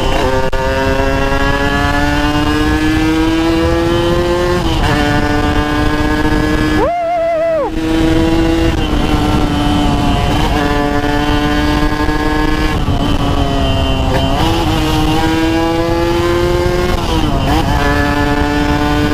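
Yamaha RX-King's two-stroke single-cylinder engine pulling under throttle while riding. Its pitch climbs slowly, then drops back at each of several gear changes, over a steady rush of wind and road noise.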